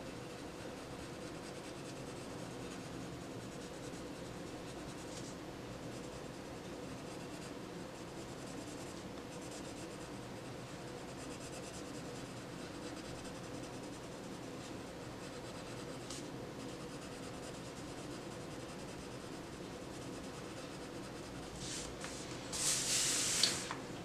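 Prismacolor coloured pencil rubbing faintly on colouring-book paper in steady shading strokes. A brief, louder rustle comes about two seconds before the end.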